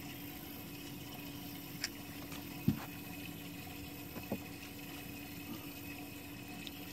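Steady low hum of a boat motor running at low speed, with water lapping and a few light knocks against the pontoon boat, the sharpest one near three seconds in.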